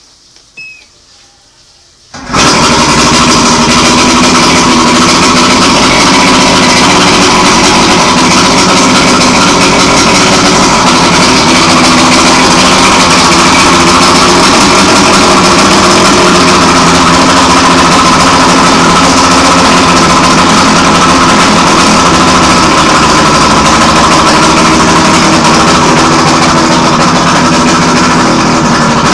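Evinrude 140 two-stroke outboard motor starting up suddenly about two seconds in, then running loud and steady, out of the water on a garden-hose flush.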